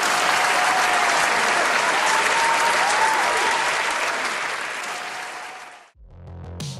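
A large audience clapping steadily, fading out about six seconds in. Electronic music with a beat starts just before the end.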